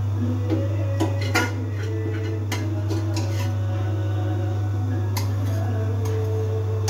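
Scattered light clinks and taps of metal kitchen utensils, about half a dozen over several seconds, over a steady low hum.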